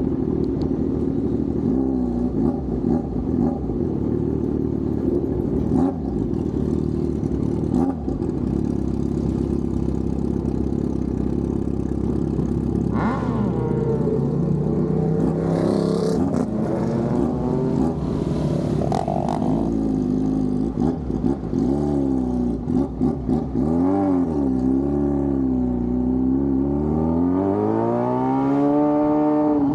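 Yamaha FZ6 Fazer 600's inline-four engine running steadily, then from about 13 seconds in revving up and down again and again, its pitch rising and falling, with the widest swings near the end.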